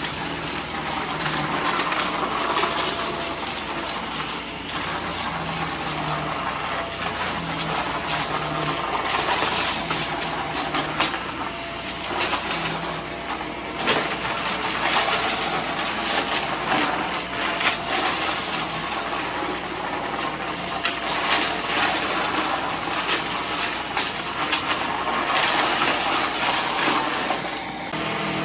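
Vacuum cleaner running and sucking up a mess of small debris, which crackles and rattles steadily through the nozzle.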